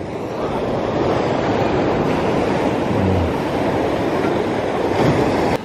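Steady, loud rush of ocean surf breaking along the shore, mixed with wind.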